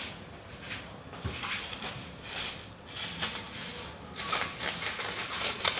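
Soft rustling and handling noises from someone working at a kitchen counter, a string of short scuffs and crinkles that grows busier and louder about four seconds in.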